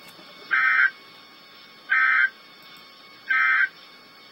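Emergency Alert System end-of-message code: three short bursts of two-tone digital data, each about a third of a second long and a little over a second apart, marking the end of the alert.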